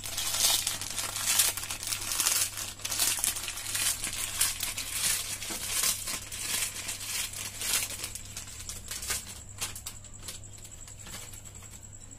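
A plastic Lays potato-chip packet crinkling and crackling as it is handled and squeezed by hand. The crackle is busiest over the first eight seconds or so, then grows fainter.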